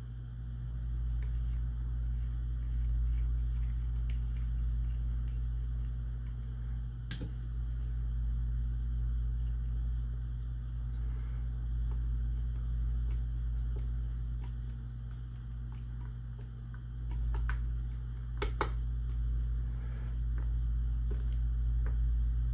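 Steady low hum of a workshop room, with a few light clicks and taps about seven seconds in and again near eighteen seconds, from small parts being handled while fitting a shotgun's grip cap.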